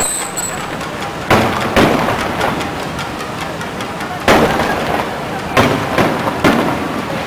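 Aerial fireworks shells bursting, about six sharp booms spaced irregularly, over steady crowd chatter.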